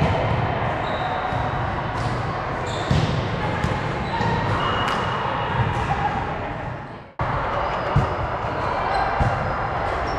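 Sports-hall ambience during an indoor volleyball match: players' and onlookers' voices echoing, short high sneaker squeaks on the court floor and occasional thumps of the ball. The sound fades out and cuts sharply back in about seven seconds in.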